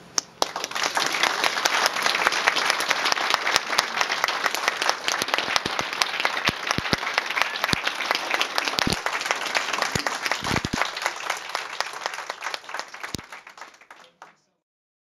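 A small audience applauding, starting sharply and keeping up a dense patter of claps, then dying away and cutting off near the end.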